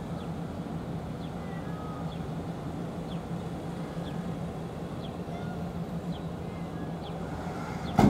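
Steady low outdoor background rumble with a constant hum, faint short chirps every second or so, and one sharp knock near the end.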